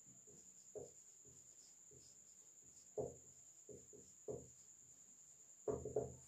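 Dry-erase marker writing on a whiteboard: a few short, soft scratching strokes, the busiest cluster near the end, over a faint steady high-pitched whine.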